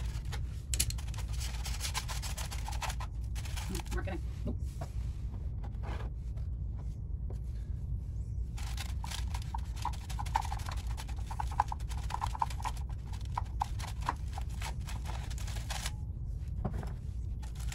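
Oil filter being unscrewed from a motorcycle engine with a filter wrench and pulled off: scattered clicks of metal tool on filter, crackling of the aluminium foil packed beneath it to catch the oil, over a steady low hum.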